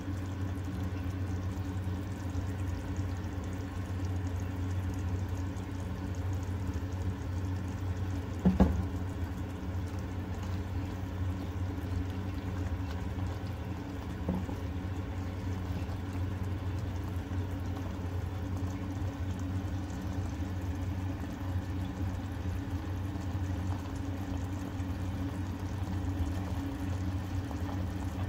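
Tinda and tomato curry simmering in an unglazed clay pot on the stove, a steady low bubbling with the last of its water cooking off. One sharp knock about eight and a half seconds in.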